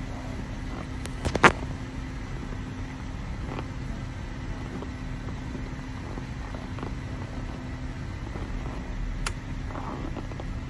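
Car engine idling steadily as it warms up after a cold start in −22 °C weather, with a sharp knock about a second and a half in and a lighter click near the end.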